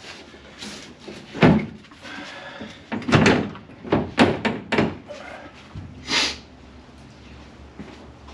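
Sheet-metal knocks and thumps from a repaired steel floor pan being worked and forced into place against the vehicle body. There is a loud thump about a second and a half in, a quick run of knocks between about three and five seconds, and a short scrape near six seconds.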